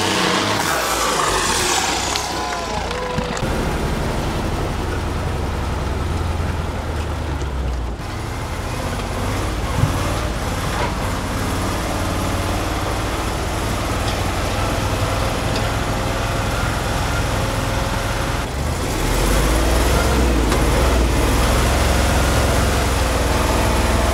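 Heavy all-wheel-drive trial truck's diesel engine running under load through off-road terrain. The engine note shifts several times and grows louder about 19 seconds in.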